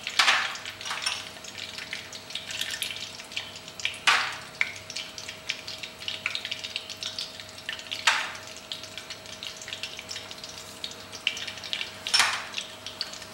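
Whole spices sizzling and crackling in hot ghee in an aluminium pot. A steady fizz of small pops, with louder surges of sizzle about every four seconds.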